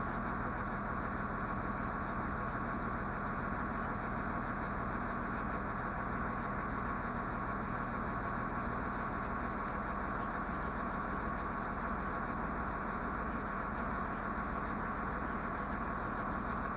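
A motor vehicle's engine idling steadily, an even hum that does not change.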